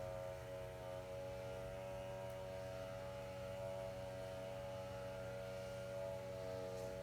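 Soft, slow background music of long held, steady tones over a low constant hum.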